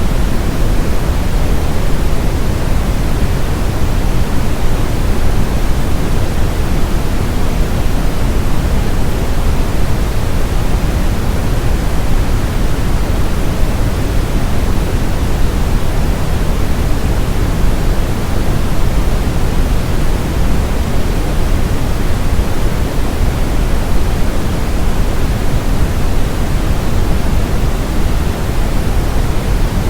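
Steady brown noise: a constant, loud, deep rushing hiss with most of its energy in the low end, unchanging throughout.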